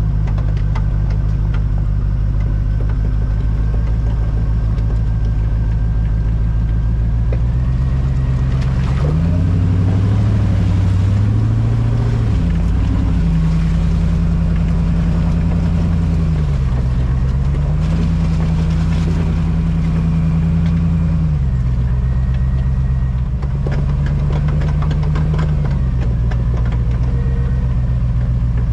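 Land Rover Discovery engine running under load while driving an off-road trail: a steady low note for the first several seconds, then revs rising and dropping several times as it works up a dirt slope.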